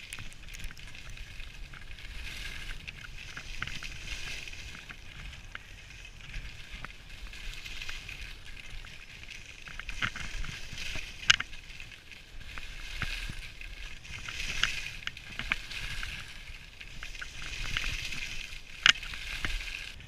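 Skis sliding over groomed snow: a scraping hiss that swells and fades with each turn, over a low wind rumble on the microphone. Two sharp clicks stand out, one about halfway through and one near the end.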